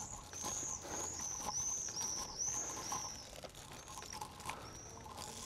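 A small bird's high chirps: short arching notes, about two a second for the first three seconds, then one more near the end.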